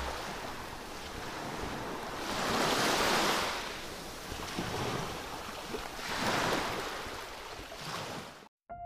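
Small sea waves washing in on the shore, swelling up and falling back twice, about three seconds apart.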